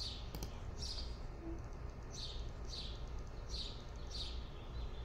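A bird repeating a short, high chirp that slides downward, about one to two chirps a second, over a low, steady background rumble.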